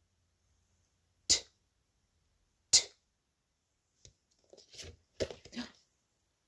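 A woman's voice making the phonics sound 't' on its own, twice: short, sharp, unvoiced puffs about a second and a half apart, with a pause after each for the listeners to repeat. Near the end comes a spell of soft rustling and handling noise as a card flash card is swapped.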